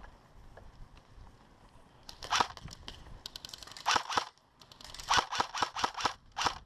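Airsoft guns firing: sharp snapping shots in short clusters starting about two seconds in, then a quick string of single shots near the end.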